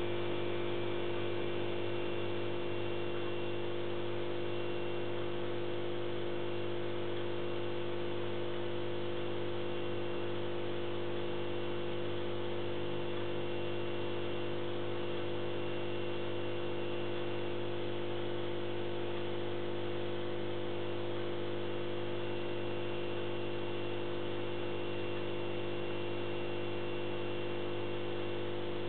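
Steady electrical hum of running aquarium equipment, a pump or filter motor, with several fixed tones over a light hiss and no change throughout.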